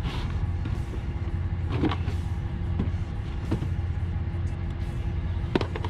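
A steady low hum or rumble, like a running engine or machinery, with faint music and a few scattered light knocks and taps.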